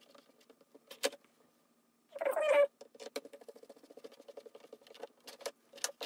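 A cat meows once about two seconds in, the call trailing off into a rapid pulsing for a few seconds. A sharp click comes about a second in and a few more light clicks near the end.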